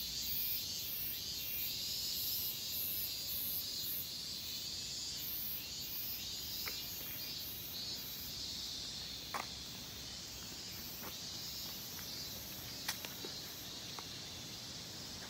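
Cicadas singing in summer trees, a high-pitched chorus pulsing about three times a second. A few short clicks in the second half.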